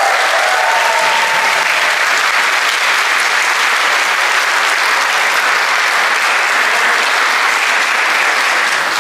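Audience applauding steadily at the close of a choral performance, with the choir's last held note fading out in the first second or so.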